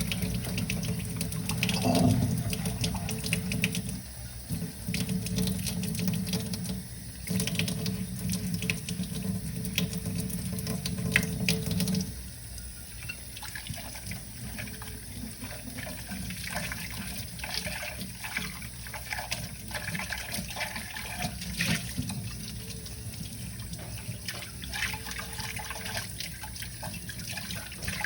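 Tap water running into a kitchen sink while dishes are washed, with dishes clinking; the tap shuts off about twelve seconds in, leaving quieter clinks and rubbing of dishes.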